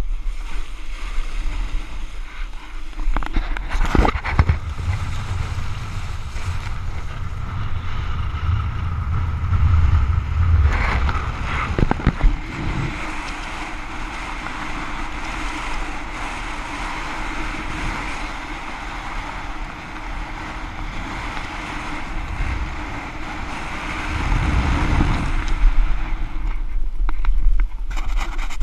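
Wind rushing and buffeting over a rider-mounted action camera's microphone during a kite-foil ride, over a steady hiss of water, with low rumbles at times. Sharp knocks come about four seconds in and again around twelve seconds.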